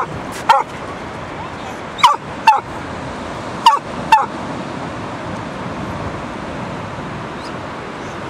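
A dog barking: six short, sharp barks coming in quick pairs, then stopping about halfway through, leaving only a steady background rush.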